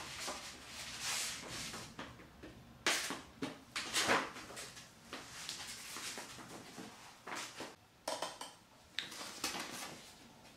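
Hands unpacking a flat-pack shoe rack: the fabric shelf cover and plastic-bagged parts rustling and crinkling against the cardboard box, with a few light knocks. The loudest come about three and four seconds in.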